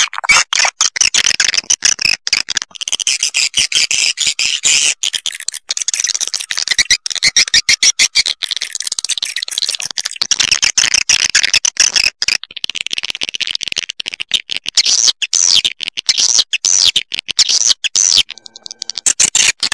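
Swiftlet lure-call recording: dense, rapid, high-pitched twittering chirps of swiftlets, broken by many sharp clicks and short gaps. It is the kind of call played in swiftlet houses to draw swiftlets in to roost and nest.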